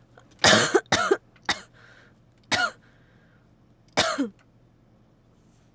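A person coughing in a series: a quick double cough about half a second in, a small cough, then two more single coughs about a second and a half apart. The coughing of someone with a cold.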